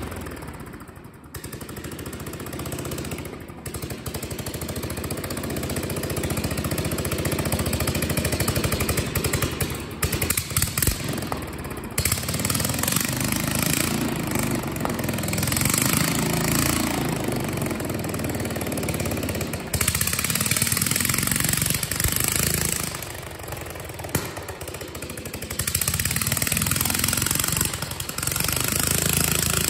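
Small air-cooled engine running on a test stand, a fast steady firing that grows louder and eases off several times as its speed is changed.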